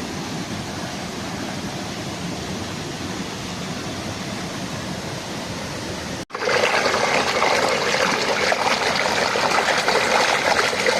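A waterfall rushing over rocks, a steady rush of water. About six seconds in it jumps abruptly to a louder, brighter rush.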